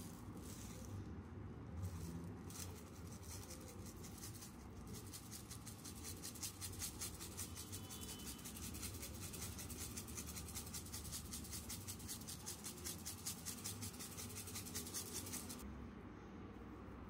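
Pepper grinder grinding black peppercorns: a fast, even run of fine gritty clicks that swells and fades a couple of times a second, starting about five seconds in and stopping abruptly about a second before the end. A few light handling ticks come before it.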